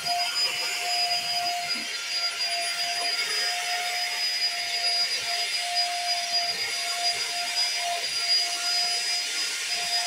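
Stick vacuum cleaner running steadily while being pushed over a carpet: a constant motor whine over a rushing suction hiss.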